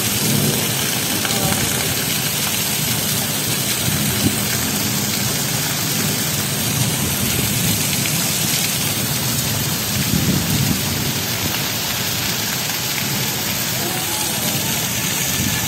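Heavy rain pouring down steadily, a dense even hiss of a downpour on the ground, water and buildings, with low rumbling swells underneath, strongest about ten seconds in.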